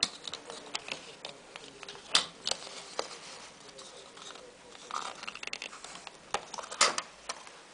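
Hands working a framed panel and its strap: scattered small clicks, taps and rustles, with a louder sharp click about two seconds in and another near the end.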